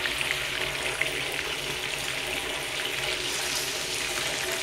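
Coated chicken pieces frying in a pan of hot oil: a steady sizzling hiss with many small crackles.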